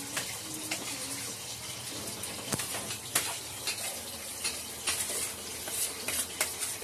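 A steady hiss runs throughout, with scattered sharp clicks and clatters of kitchen utensils and dishes being handled.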